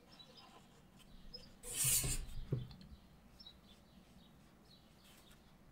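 A loose piece of white card being slid across the tabletop and set down, a brief papery rustle with two soft knocks about two seconds in. Faint bird chirps in the background.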